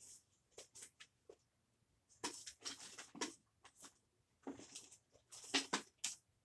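Rummaging through a drawer of cards: irregular rustling, scraping and knocks of things being shifted about, in two busier spells separated by a short pause.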